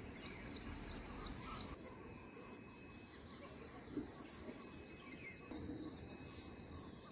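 Small birds chirping in the background: a quick run of short, high chirps in the first second and a half, over steady outdoor noise, with a brief knock about four seconds in.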